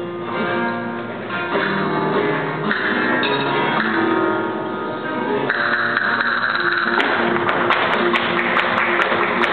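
Live flamenco: a voice singing long held notes over acoustic guitar. About seven seconds in, a quick run of sharp percussive strikes joins, roughly four a second.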